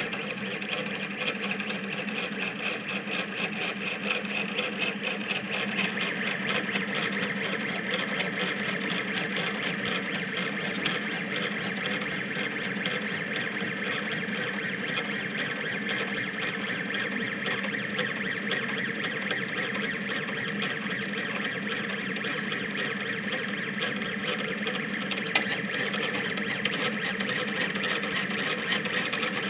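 Rostock delta 3D printer's stepper motors whining in several steady tones as the effector makes rapid back-and-forth moves at high print speed, with a fast, dense buzzing texture; the pitch of the whine shifts about six seconds in.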